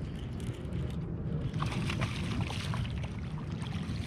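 A hooked spotted bay bass splashing and thrashing at the water's surface as it is reeled in, a run of splashes starting about one and a half seconds in, over a steady low rumble.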